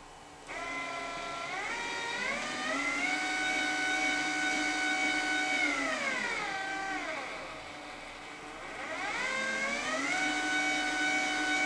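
A 12 V linear actuator's DC motor whines as it drives. Its pitch tracks the PWM speed controller's knob: it climbs as the speed is turned up, holds steady, drops around the middle as the knob is turned down, then climbs again and holds near the end.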